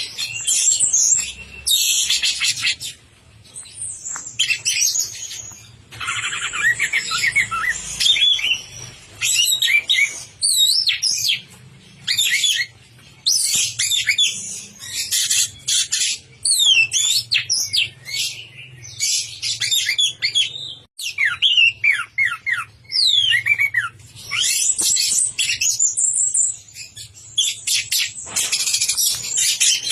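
Orange-headed thrush (anis merah) singing a long, varied song of quick rising and falling whistles and rapid chatter, phrase after phrase with only brief pauses: a bird in full song.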